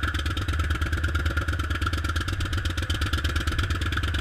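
Hand-held pneumatic tamper pounding type 1 backfill down in a keyhole core hole, a rapid steady hammering that compacts the refilled excavation.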